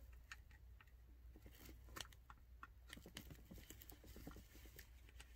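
Faint small clicks and scrapes of screwdriver tips prying at the clips of a plastic HVAC blend door actuator housing.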